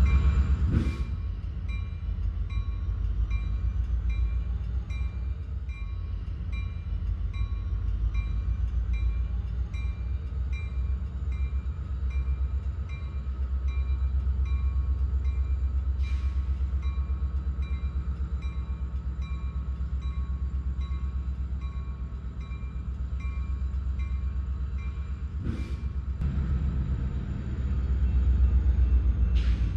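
Train running: a heavy, steady low rumble with a regular repeating high clink throughout, and a few sharp knocks.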